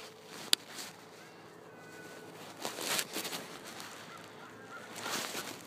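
Faint honking bird calls over a quiet outdoor background, with one sharp click about half a second in and two brief rustling noises, around the middle and near the end.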